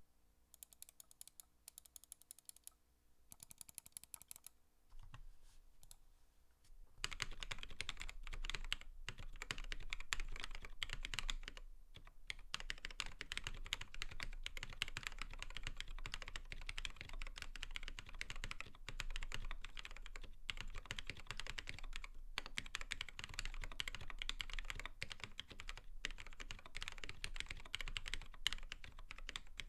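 Typing on a mechanical keyboard fitted with lubed and filmed Poli Panda tactile switches: Kailh Polia stems in BSUN/YOK Arctic Panda housings with their stock springs. The keystrokes are sparse and quieter for about the first seven seconds, then run as steady, continuous typing.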